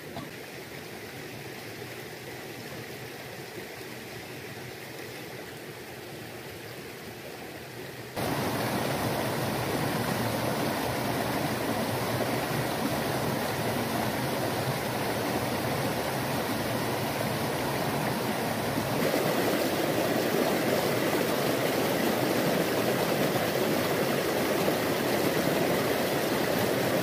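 Small rocky forest stream rushing and splashing over boulders in a steady wash of water. It is quieter at first, becomes much louder and fuller suddenly about eight seconds in, and swells a little more about two-thirds of the way through.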